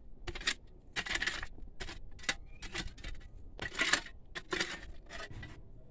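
A metal digging tool scraping and clinking into stony earth and rock: about ten irregular strokes, some sharp clinks and some longer scrapes, as a pit is dug out by hand.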